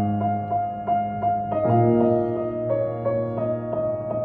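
Steinway grand piano playing a slow ballad: held bass notes under repeated right-hand chords about three a second, the harmony changing about a second and a half in.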